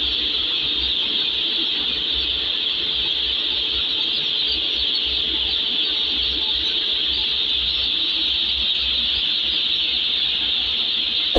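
Dense, unbroken peeping of a shed full of about three thousand day-old broiler chicks in their delivery crates, a high-pitched chorus with a faint steady hum underneath.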